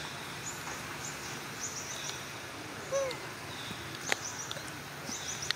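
Forest birds chirping in short repeated high calls over a steady outdoor background hiss. A short rising-and-falling call comes about three seconds in, and a sharp click about a second later.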